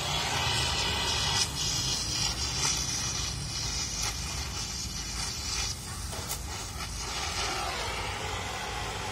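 Oxy-acetylene welding torch hissing steadily as it heats and welds thin sheet steel, over a steady low hum; the hiss is strongest for a few seconds in the middle.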